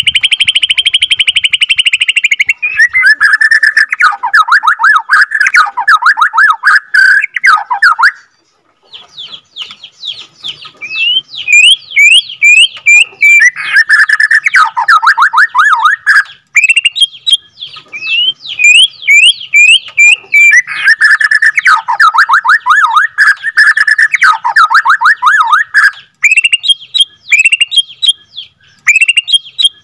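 White-rumped shama (Borneo murai batu) singing its long rolling song. It opens with a buzzy trill, then alternates runs of rapid falling notes with series of quick rising whistles, about three times over.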